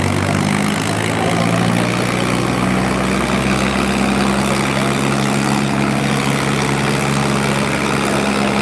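Two diesel tractors chained back to back in a tug-of-war, both engines running hard under heavy load with a steady low drone.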